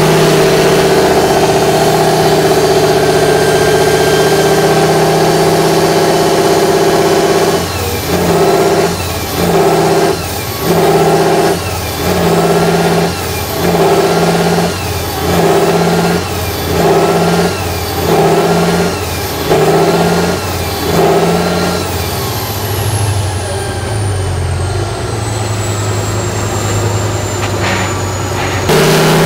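Tatra 6x6 trial truck's diesel engine working hard at high revs under load, then revved up and down in quick pulses about once a second, then settling to a lower, steady run. Near the end a faint high whistle falls in pitch, and the high revs return right at the end.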